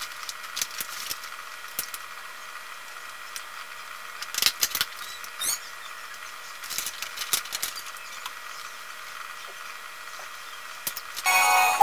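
Scattered crackles and clicks of a plastic drink bottle being handled and its cap fiddled with, over a steady background hum. Music starts near the end.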